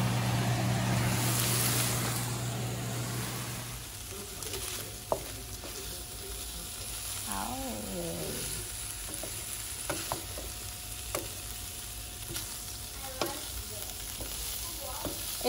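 Shrimp fried rice sizzling in a frying pan as it is stirred with a spatula, with scattered clicks of the spatula against the pan. Louder for the first few seconds, with a steady low hum underneath, then a quieter sizzle.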